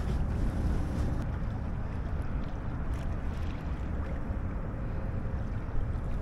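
Steady wind noise buffeting the microphone aboard a small sailboat under way, a low rumble with no clear pitch.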